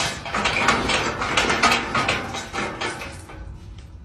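Rapid, continuous metallic rattling of a metal railing gate as a cat pushes against its bars, fading near the end.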